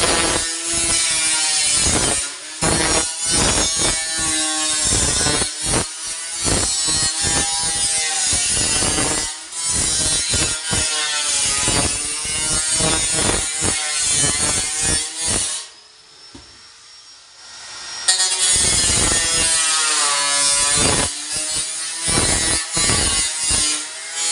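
Saw cutting in rapid back-and-forth strokes, each stroke with a rasping, squealing pitch. It stops for about two seconds a little past the middle, then carries on.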